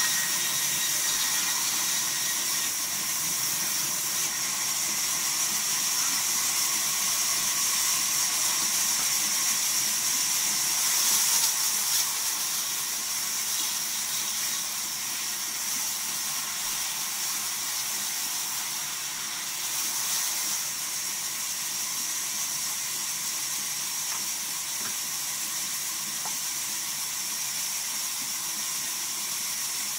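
Vertical band saw mill's blade cutting through a wooden log: a steady high hiss with a faint whine, swelling slightly about eleven seconds in.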